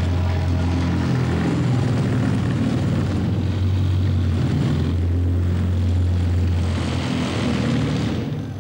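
The electric motor of a motorized folding deck chair running with a steady low drone as it slowly tilts the chair back. The drone eases off near the end.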